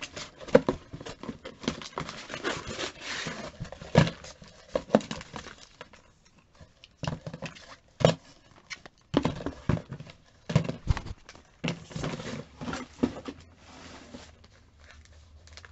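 Cardboard boxes and packaged cosmetics being handled: rustling with scattered knocks and taps as items are moved and set down, thinning out between the two busier stretches.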